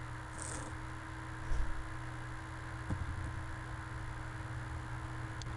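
Steady hum and hiss of a recording microphone's background noise, with a soft low thump about one and a half seconds in and a faint click about three seconds in.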